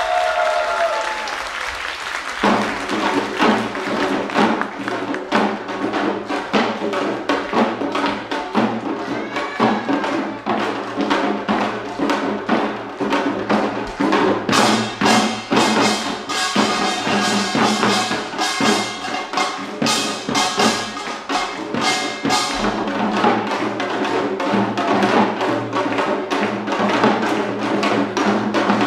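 Pungmul (Korean farmers' band) percussion: buk barrel drums and other hand percussion beating a fast, dense rhythm, with the strokes getting sharper and brighter about halfway through.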